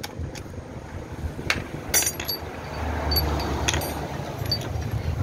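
Sharp metal clinks of a small socket wrench and loosened bolts as the cover over a Yamaha Mio scooter's kick-starter is unbolted, a handful of separate clicks, with a low rumble underneath from about three seconds in.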